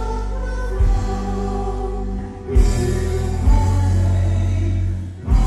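Live rock band playing with sung harmony vocals, recorded from right beside a PA speaker so the bass is heavy and overpowering. The music dips briefly twice.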